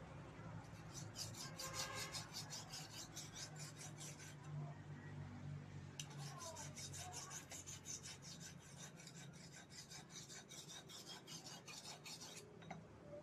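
Kitchen knife being sharpened by hand with a sharpening stone: quick rasping strokes of stone on the steel blade, about five a second. The strokes come in two runs, with a short pause about four seconds in.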